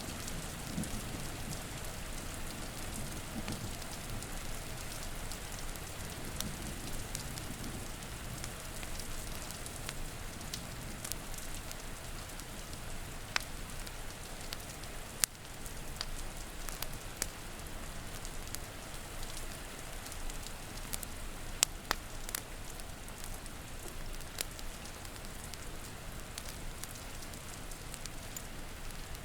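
Steady rain with a wood fire crackling in sharp, scattered pops every few seconds. A low rumble of thunder dies away in the first few seconds.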